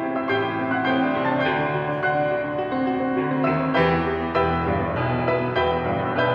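Background music led by piano, notes sounding one after another at an even level.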